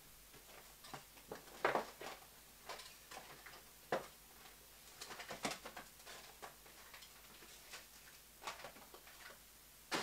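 Faint, irregular clicks and light knocks of someone moving about and handling things off to the side, with the sharpest knocks about two and four seconds in.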